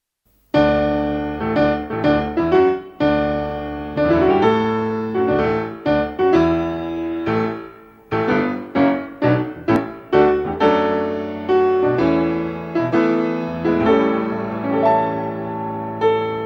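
Solo piano music, struck notes and chords played in quick phrases, starting about half a second in.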